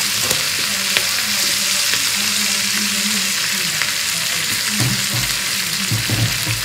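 Spinach stems frying in foaming butter in a frying pan: a steady sizzle with scattered small crackles, and a few soft low thuds near the end.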